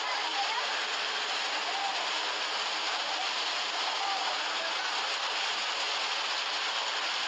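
Steady, even rush of a lahar: a muddy flash-flood torrent pouring past, swollen by heavy rain.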